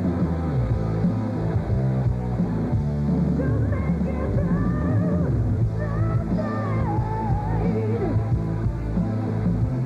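Live hard rock band playing loud: electric guitar, bass and drums, with a high wavering, bending lead line over the band from about a third of the way in.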